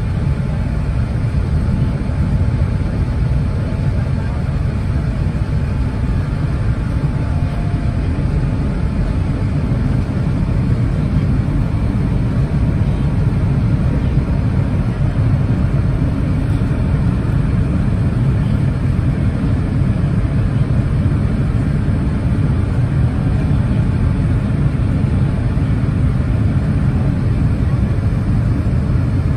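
Steady low rumble of airliner cabin noise inside a Boeing 787-9 on approach to landing: engine and airflow noise heard through the fuselage, even in level throughout.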